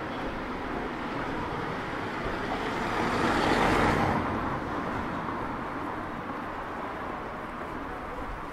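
A car drives past close by. Its engine and tyre noise swells to a peak about three and a half seconds in and then fades, over a steady background of street hum.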